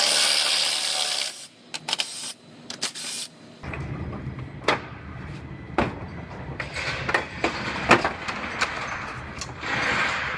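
Scattered sharp clicks and knocks of hand tools and fasteners working on a car's front-end panels, after a short burst of hiss at the start, over a low steady hum.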